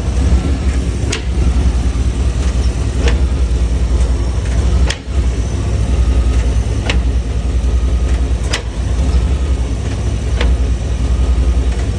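1995 Chevrolet OBS pickup's engine running steadily, with a sharp clunk repeating about every two seconds, six times in all: the unexplained clunk noise the owner is asking about.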